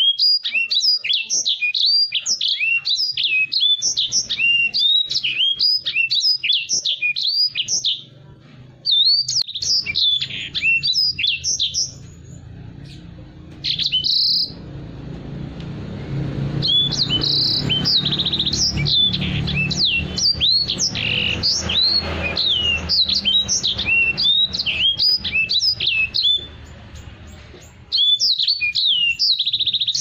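Caged edel sanger (white-rumped seedeater) singing a fast twittering song of quick rising and falling notes, delivered in long bursts with short breaks. A low rumble runs underneath through the middle part.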